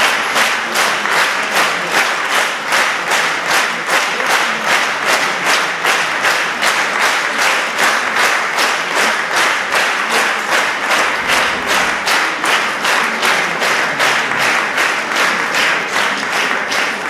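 Audience applauding in unison: rhythmic clapping at about three claps a second.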